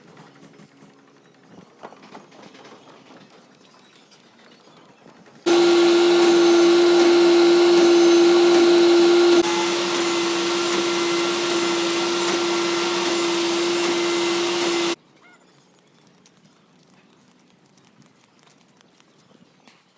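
A loud, steady machine sound with a constant whine, starting abruptly about five seconds in, dropping slightly in level partway through and cutting off abruptly about ten seconds later.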